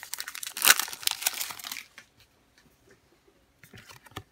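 Foil wrapper of a Pokémon booster pack crinkling and tearing as it is opened by hand, for about two seconds, then a few faint rustles and clicks of handling near the end.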